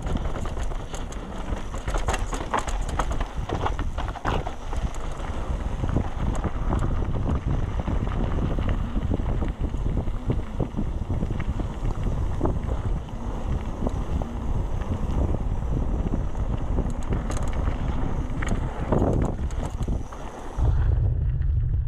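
Riding a Trek Session 9.9 downhill mountain bike fast over a rough, rooty trail: wind rushing on the action camera's microphone, tyres rumbling over dirt, and the bike's chain and frame clattering with sharp knocks over roots and drops. Near the end the sound suddenly turns to a dull low rumble.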